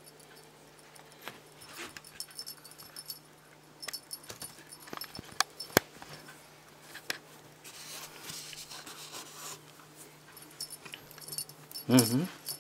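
A cat batting at a feather teaser toy and a felt hat: scattered light taps, sharp clicks and rustling, with faint jingling. About twelve seconds in, a short wavering call is the loudest sound.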